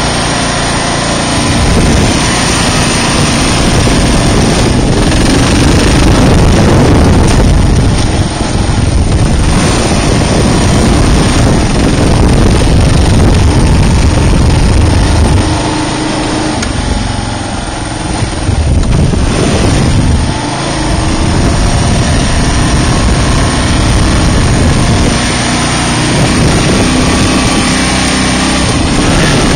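Kawasaki KLR650's single-cylinder four-stroke engine running while the motorcycle is ridden along, easing off briefly a little past halfway and then pulling again.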